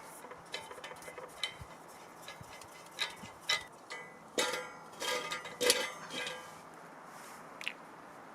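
Metal parts of a portable propane stove-and-heater being handled and fitted together: scattered light clicks and knocks, then a run of ringing metallic clanks a little past the middle.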